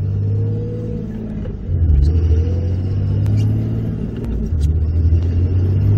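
A 6.7 Cummins turbo-diesel accelerating hard, heard from inside the cab. The engine note climbs, drops back at upshifts and climbs again. A thin turbo whistle comes in near the end, drawn in plainly through the newly fitted S&B cold air intake.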